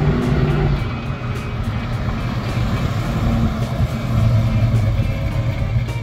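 V8 engine of a 1966 Ford Fairlane GTA running as the car drives at low speed, growing louder again about four seconds in.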